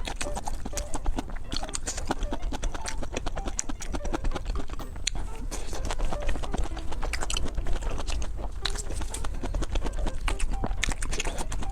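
Chewing and mouth smacking of someone eating chicken curry with rice: a dense, irregular run of small wet clicks and smacks, several a second.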